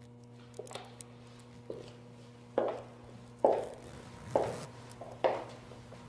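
Heavy knife chopping on a block: a few light taps, then strong, evenly spaced blows about once a second, each with a short ring-out, over a steady low hum.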